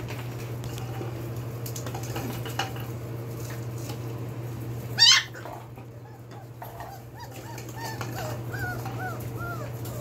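Belgian Malinois puppies about four and a half weeks old: one sharp yelp about halfway through, then a run of short, high whines and yips toward the end. Light taps on the tile floor and a steady low hum sit underneath.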